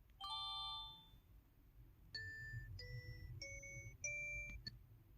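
EV-W550 mobile phone's built-in button sound effects: a short ringing chime, then four quick electronic beeps that step up in pitch, ending with a click.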